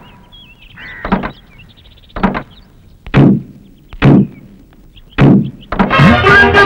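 Car doors opening and slamming shut as passengers get out: about five solid thunks roughly a second apart. Music starts near the end.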